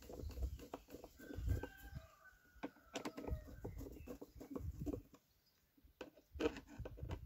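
Hens clucking, with small clicks and low knocks from a screwdriver tightening the screws of a motorcycle's stepper-motor idle valve into its plastic airbox.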